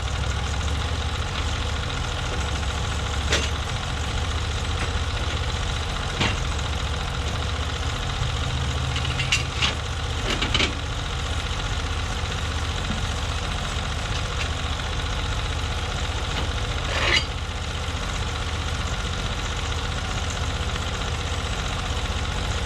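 Engine of a Norwood MX34 portable bandsaw mill running steadily, with a handful of short sharp clicks or knocks over it.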